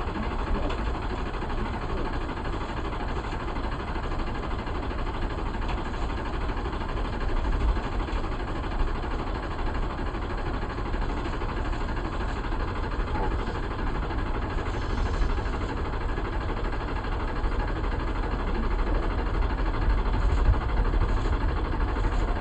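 Vehicle engine running steadily, a low rumble with a continuous noisy hiss over it.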